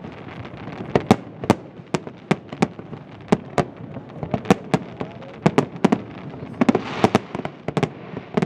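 Aerial firework shells bursting in an irregular run of sharp bangs, about three a second, over a continuous background of crackle and rumble.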